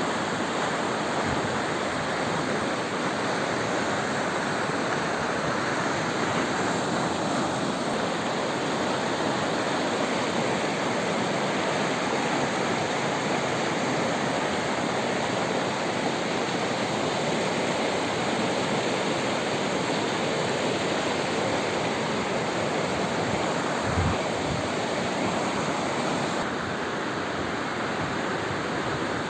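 Swollen river in flood after heavy rains, its fast current rushing in a steady, unbroken wash of water noise. A brief low thump comes about three quarters of the way through.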